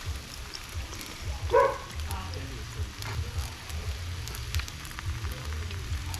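Rice sizzling on a Blackstone flat-top griddle, a patter of small crackles over a low steady rumble, with a brief voice about a second and a half in.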